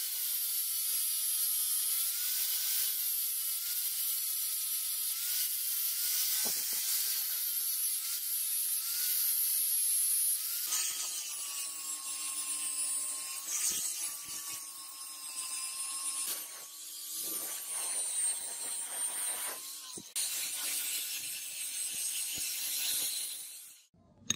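Angle grinder grinding the steel receiver tube of a handmade air gun, throwing sparks. The motor's whine wavers and dips as the disc is pressed on and eased off, then cuts off near the end.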